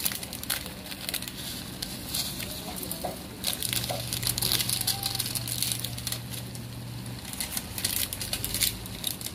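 Chicken pieces sizzling in a pan of hot oil and released juices, with soy sauce and vinegar, dense with small crackles and pops.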